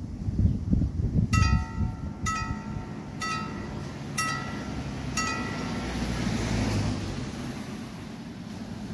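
Railway level-crossing gong bell (genta) striking five times, about once a second, each strike ringing with a clear metallic tone. It is the signal that a train will soon pass. Near the end a car drives past and grows louder, then fades.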